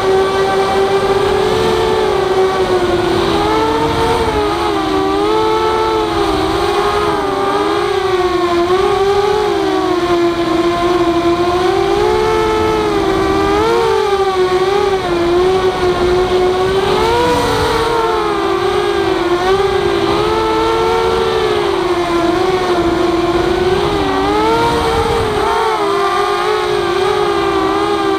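Walkera F210 racing quadcopter's brushless motors and propellers whining steadily, the pitch wavering up and down with throttle changes and at times splitting into two close tones.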